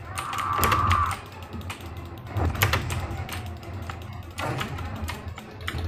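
Computer keyboard keys and mouse buttons pressed in irregular clicks during fast gameplay, over game combat sound effects and a low background bed of game audio. A brief held tone sounds in the first second.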